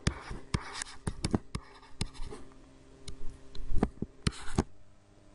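Stylus writing on a tablet screen: irregular sharp taps and short scratchy strokes as a word is handwritten, with a louder run of strokes about four seconds in.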